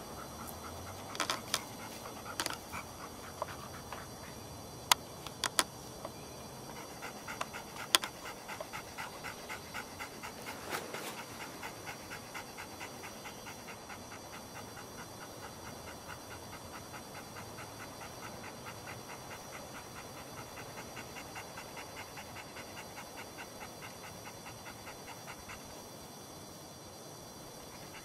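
Black dog panting steadily, several breaths a second, with its tongue out. A few sharp clicks come in the first several seconds.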